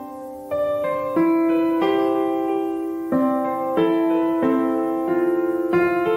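Background piano music: a slow melody over chords, with a new note or chord struck every half second or so, each ringing and fading into the next.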